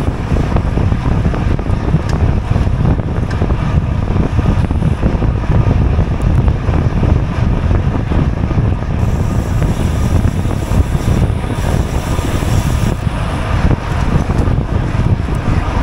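Wind buffeting the microphone of an action camera on a racing bicycle at speed, a steady loud rumble; a higher hiss joins for a few seconds after the middle.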